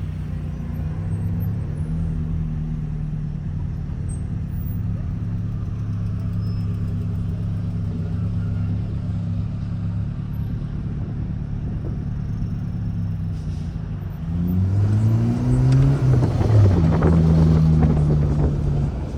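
Car engine running steadily at a low hum. About fourteen seconds in it revs up, rising in pitch and getting louder for a few seconds as the car accelerates.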